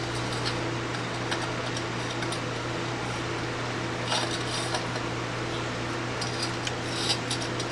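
Small hard objects being handled and set down, giving scattered light clicks and clinks, a cluster about four seconds in and more near the end, over a steady electrical or fan hum.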